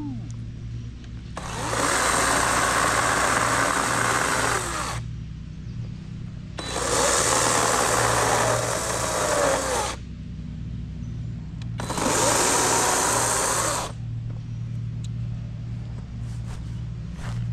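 Kobalt 40V Max cordless chainsaw cutting into a big log in three runs of a few seconds each, its whine falling away as each run ends. A steady low hum sits underneath.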